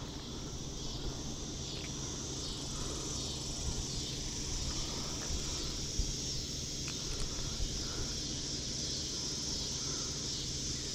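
A steady chorus of insects, a continuous high-pitched shrill drone with no breaks.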